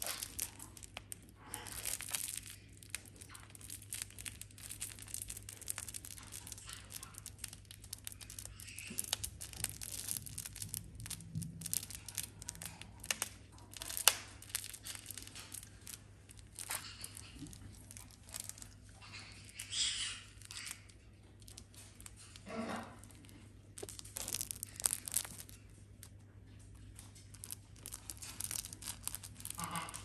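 Sulphur-crested cockatoo biting and tugging at a stuffed fabric toy with its beak: irregular scratchy rustles and small clicks, with one sharp click about halfway through.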